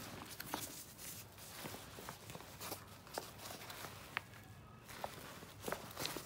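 Handling noise from a Prada Re-Nylon and Saffiano leather tote bag: nylon lining rustling as hands open the inner pocket, with scattered light clicks and taps about once or twice a second.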